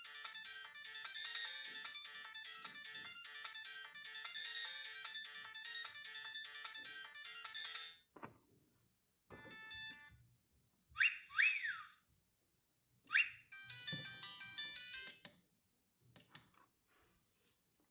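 Siemens CXT65 mobile phone playing a polyphonic ringtone melody through its loudspeaker, which cuts off abruptly about eight seconds in. It is followed by a few short tones, three quick falling chirps and a brief burst of notes from the phone, then faint clicks near the end.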